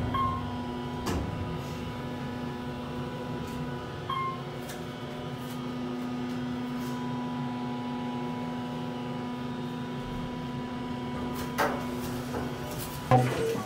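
Elevator car running, a steady hum with a low and a higher held tone, broken by a few clicks and knocks, the loudest near the end.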